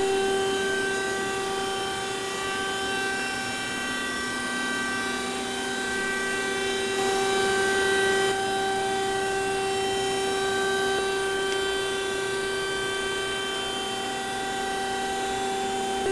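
Glebar PG-9DOD OD grinding machine running: a steady, even whine over a constant hiss, the hiss a little brighter for about a second midway.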